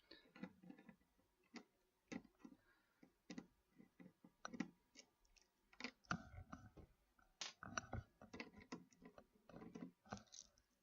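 Faint, irregular clicks and light knocks of small metal and plastic computer parts being handled, as the old CPU cooler's mounting bracket and back plate come off the motherboard.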